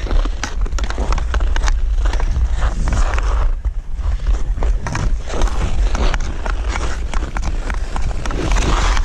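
Hockey skates scraping and cutting across rough outdoor pond ice while the skater carries the puck in on the stick, with frequent sharp clicks. A heavy low rumble of wind on the microphone runs underneath.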